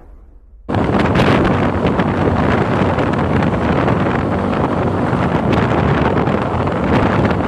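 Wind buffeting the microphone of a camera moving along a road, a dense, steady rushing noise with a low rumble beneath. It starts abruptly under a second in, after a short near-silent gap.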